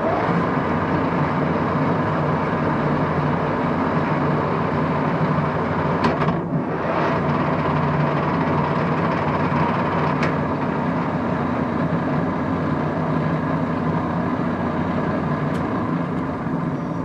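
Axelson 24-speed geared lathe headstock running at about 150 RPM, a steady gear whine and hum, as its spindle is thrown between forward and reverse through the reversing clutch. The sound changes briefly about six seconds in as the clutch shifts over. The reversal goes through smoothly, with good action.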